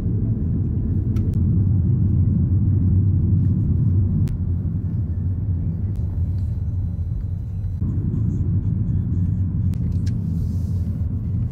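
Car driving through town, heard from inside the cabin: a steady low rumble of engine and road noise.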